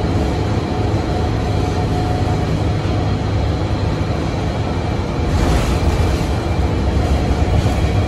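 Cummins ISM diesel engine and Allison-driven drivetrain of a 2006 NABI 40LFW transit bus running under way, a steady low rumble with road noise and a faint steady whine, heard inside the passenger cabin. A brief rushing hiss comes about five seconds in.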